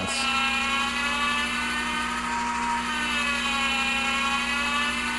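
Tuning motor of a Nautel ATU500SR antenna tuning unit whirring steadily as it drives the coils downward during automatic tuning, decreasing the inductance. The pitch wavers slightly, dipping and rising again.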